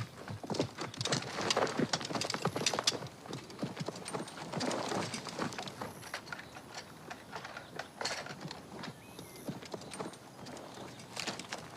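Quick, irregular footfalls on hard ground, thickest in the first three seconds and returning in short runs later.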